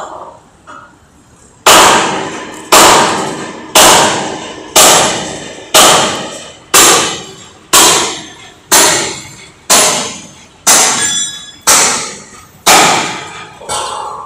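Hammer blows on the steel mast of a tower crane being dismantled: twelve ringing metallic clangs about once a second, starting a couple of seconds in.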